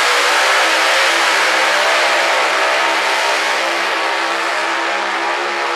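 Two-wheel-drive pulling tractor's engine running flat out at steady high revs while it drags a weight-transfer sled down the track, loud throughout.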